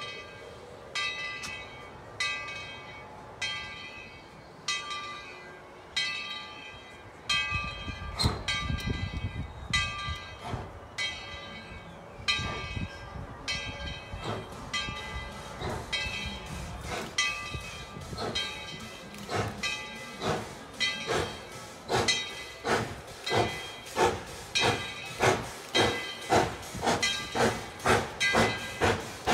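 Tweetsie Railroad's No. 12, a ten-wheeler steam locomotive, ringing its bell at a steady beat as it starts its train. About eight seconds in, a low rumble from its exhaust joins. Then the exhaust beats quicken as the locomotive pulls away.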